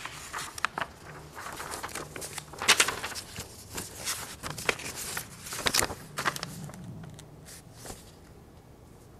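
Irregular clicks and knocks of handling in a small room, loudest about a third and two thirds of the way through, thinning out near the end.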